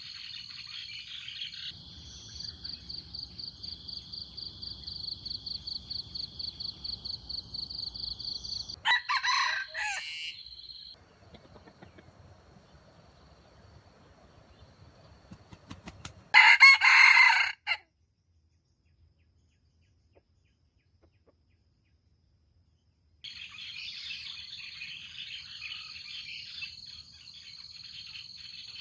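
Jungle fowl rooster crowing twice, two short high calls about seven seconds apart, the second the louder. Around them is a high chorus of birds and insects with a steady, rapid pulsing trill, broken near the middle by a few seconds of dead silence.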